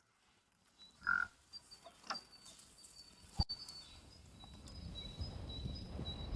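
Quiet farmyard with livestock: a few brief, faint animal sounds, a sharp click about three and a half seconds in, and rising low rustling toward the end.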